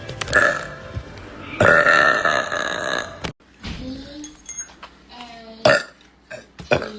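A young woman letting out a loud, drawn-out burp about a second and a half in, lasting about a second and a half. Quieter throat and voice sounds follow, with one brief sharp knock about two-thirds of the way through.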